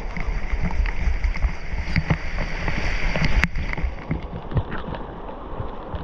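Waterfall water rushing and splashing close to the microphone, with a heavy low buffeting rumble for the first three seconds or so. Scattered clicks and knocks sound throughout.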